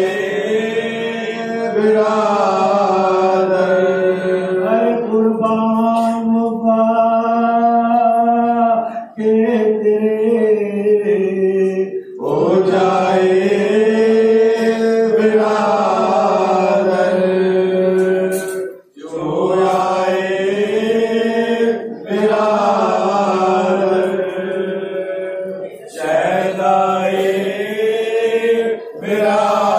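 A group of men reciting a noha, a Muharram lament, unaccompanied through microphones. They chant in long held, wavering notes with brief breaks between lines.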